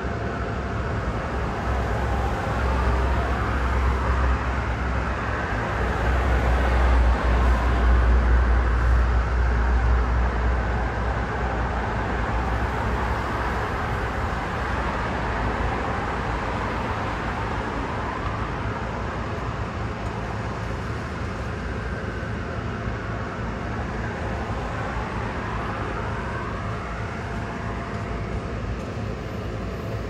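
Road traffic driving past close by: tyre and engine noise of several cars swelling and fading as they pass, over a steady low rumble that is loudest about seven to ten seconds in.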